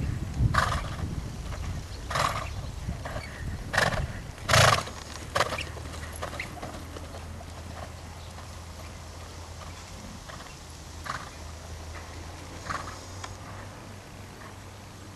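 A ridden horse moving on a sand arena: its hoofbeats, with a handful of short, sharp sounds, most in the first six seconds and two more near the end.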